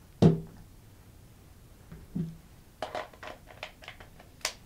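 Clicks and knocks from a 35mm SLR camera being handled: a sharp knock about a quarter second in, a softer one around two seconds, a quick run of small clicks around three seconds, and a sharp click near the end.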